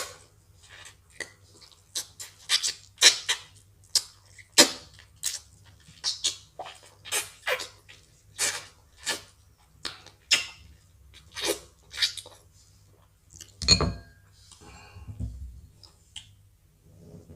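Mukbang eating sounds: an irregular run of sharp clicks, smacks and clinks from mouths and dishes, about one to two a second, over a low steady hum. A louder, deeper bump comes about fourteen seconds in.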